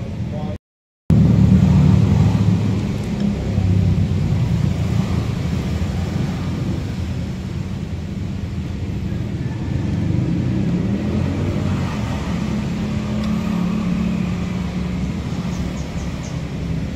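Steady low rumble of a motor vehicle running, starting abruptly about a second in and holding on to the end.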